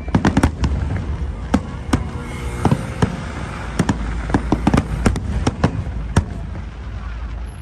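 Aerial fireworks shells bursting overhead: about twenty sharp bangs in irregular clusters over a steady low rumble, thinning out near the end.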